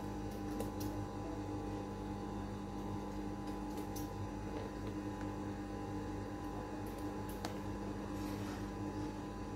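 Steady electrical hum holding a few fixed tones, with a few faint clicks from handling the leather bag.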